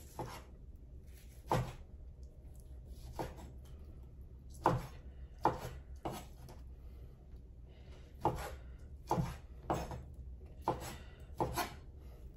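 Kitchen knife cutting meat into small pieces on a wooden cutting board: irregular knocks of the blade striking the board, roughly one a second, some in quick pairs, over a steady low hum.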